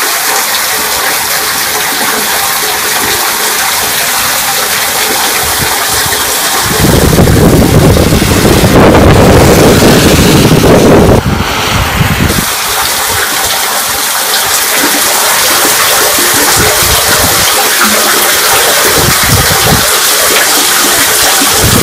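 Stormwater running down into a street drain beneath a cast-iron grate, a steady rush of falling water. About seven seconds in a deeper, louder rush swells for some five seconds, then drops away.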